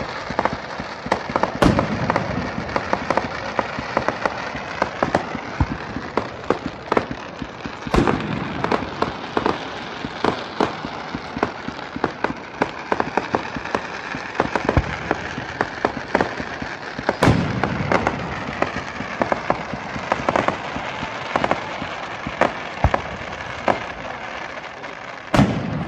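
Aerial fireworks going off close overhead: a dense, continuous crackling of many small pops. Louder single booms break through it about two seconds in, at about eight and seventeen seconds, and again near the end.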